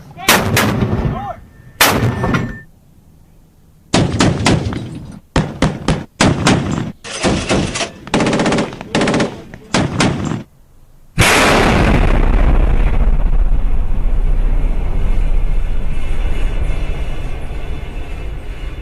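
Gunshot sound effects: a few single shots with echoing tails at the start, then a rapid series of single shots and short bursts of automatic fire from about 4 to 10 seconds. About 11 seconds in, a sudden loud blast opens a long, deep, steady noise that slowly fades.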